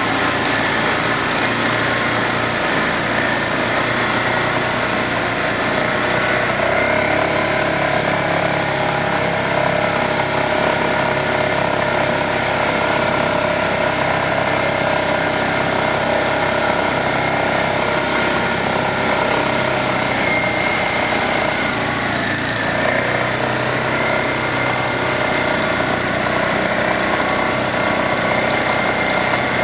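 ATV (quad) engine running steadily under load as the quad wades through a flooded river, with the rush of water churned up around it; the engine note shifts a little a couple of times.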